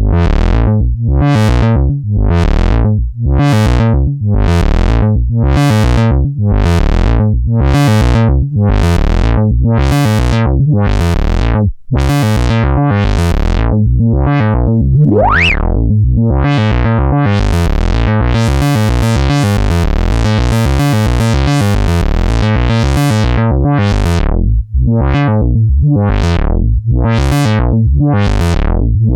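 A Eurorack synthesizer patch: a wavetable oscillator playing a repeating bass-heavy note, about four every three seconds, through a voltage-controlled filter whose cutoff opens and closes with each note under LFO modulation. About halfway through a resonant whistle glides upward, and for several seconds after that the filter stays brighter and more open.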